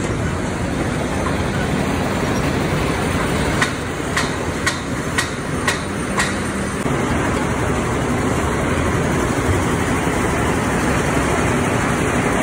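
Steady mechanical rumble of a concrete mixer running, with a series of about six sharp clanks, roughly half a second apart, a little past a quarter of the way in.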